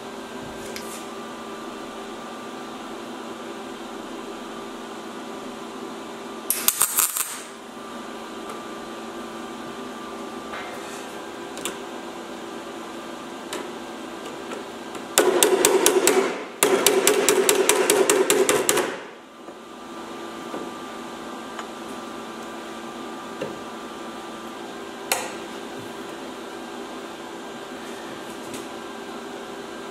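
MIG welder putting spot welds into a steel repair panel: a short burst of arc crackle about seven seconds in, then two longer runs of rapid crackling from about fifteen to nineteen seconds, over a steady hum.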